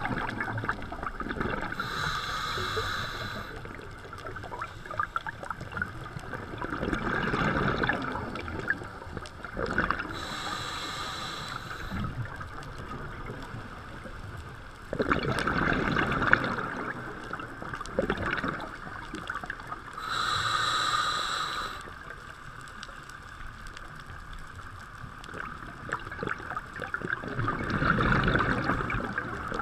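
A scuba diver breathing through a regulator underwater: a hissing inhale every eight to ten seconds, alternating with bursts of exhaled bubbles rumbling and bubbling past the camera.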